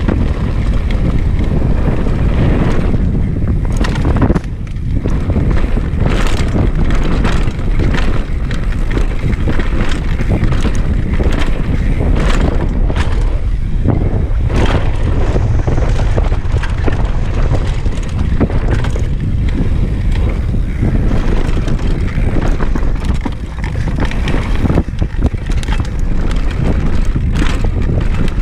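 Wind rushing loudly over the microphone of a helmet camera on a downhill mountain bike at speed, with tyres rolling over gravel and dirt and frequent knocks and rattles from the bike over rough trail.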